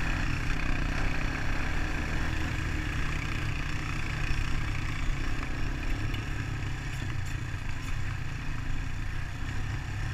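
Honda ATV engine running steadily, a continuous low rumble.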